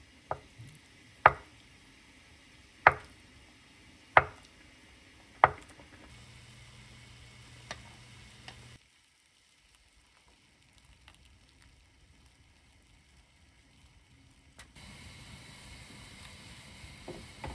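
A chef's knife slicing through a block of tofu and knocking sharply on a wooden cutting board, about five strokes a second and a half apart. Near the end, a pot of water bubbling on a gas stove.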